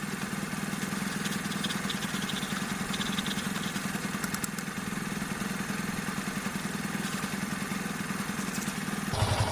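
Yamaha FZ motorcycle's single-cylinder engine idling steadily, with a few faint light ticks about two to three seconds in.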